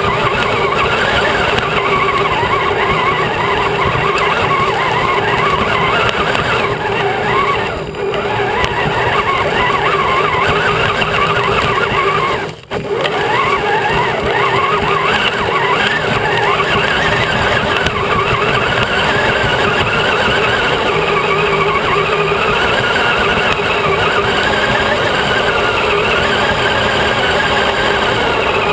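Electric motor and geared drivetrain of a radio-controlled crawler truck whining as it drives over rough ground, heard close up from inside its body. The pitch wavers with the throttle and the sound drops out briefly twice, about eight and thirteen seconds in.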